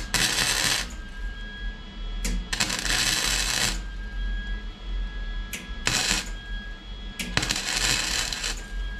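Arc welding on a cracked Mk3 Toyota Supra steel rear subframe, a repair weld. It comes as several bursts of arc, each under about a second or so, with short pauses between them.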